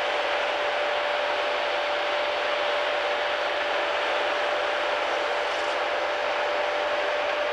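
Timberjack 618 tracked feller buncher running steadily, a dense, even machine noise with one constant whine through it.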